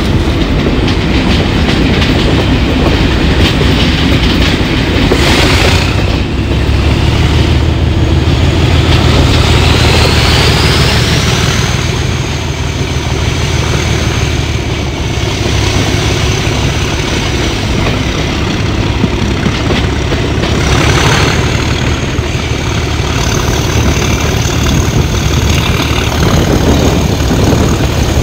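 Class 37 diesel locomotive's English Electric V12 engine working hard under power, its thrash rumbling low, with the turbocharger whistle climbing over several seconds to a steady high whine, easing briefly and rising again a little after halfway. Wheel and rail noise runs underneath.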